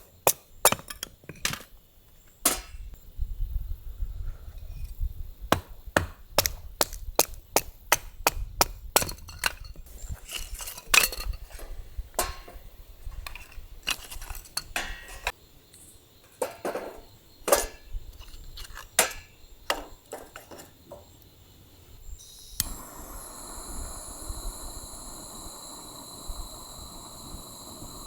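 Chopping on wood: irregular sharp knocks and cracks, some loud, for about twenty seconds. It then changes abruptly to a steady outdoor hiss with several high, steady tones.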